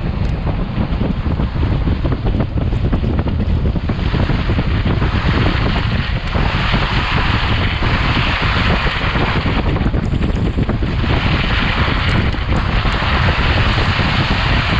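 Wind buffeting the microphone of a camera mounted at a Jeep's wheel, over a heavy, steady rumble of the tyres on a snowy off-road trail. A hiss swells and fades in stretches, strongest a few seconds in and again near the end.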